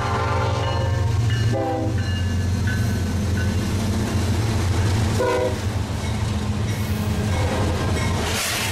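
Norfolk Southern diesel freight locomotives passing close by, their engines' steady low rumble under the lead unit's multi-note horn: a held chord at first, then short blasts about a second and a half and five seconds in, sounded at a whistle post as a warning for a grade crossing ahead.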